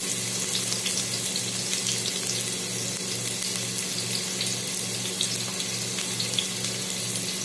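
Garlic and ginger sizzling in a little hot oil in a pan, a steady crackling hiss. A low hum pulses about twice a second underneath.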